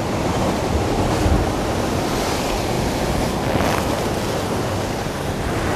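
Sea swell surging and breaking against rocks in a narrow cove, a steady wash of surf with stronger surges about a second in and again near four seconds.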